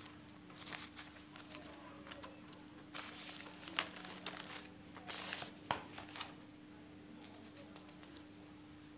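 Paper rustling and crinkling in short bursts, with a few soft clicks, as a notebook page is turned over to a fresh sheet, over a faint steady hum.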